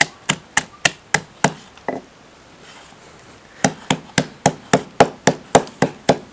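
Wooden pestle pounding whole small rạm crabs (tiny brackish-water crabs) in a mortar, crushing them to get the meat and juice out for soup. The knocks come at a steady three to four a second, stop for about a second and a half midway, then start again.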